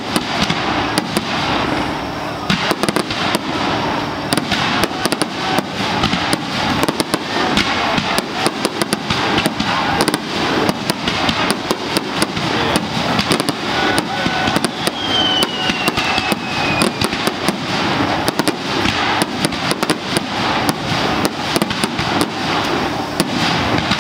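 Fireworks finale barrage: aerial shells firing and bursting in a dense, unbroken rapid crackle of reports. A falling whistle cuts through about 15 seconds in and again near the end.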